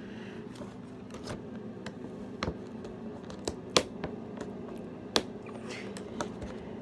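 Hands struggling to open a toy's cardboard box: scattered sharp clicks and snaps of the packaging, the loudest about four seconds in, over a steady low hum.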